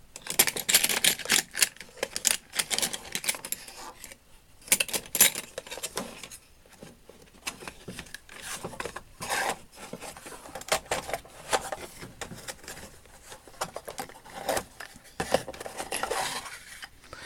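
Small steel hand tools, scribers among them, clinking and rattling against each other and the metal drawer as they are picked up and handled, in irregular sharp clicks with short lulls.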